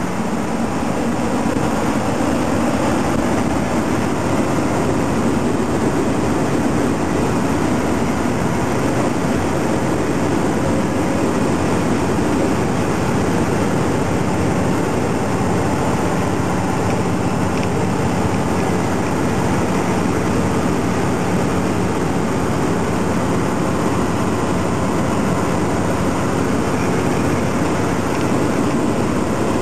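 A truck driving at a steady speed on the highway: the engine drones evenly under a constant rush of road and wind noise.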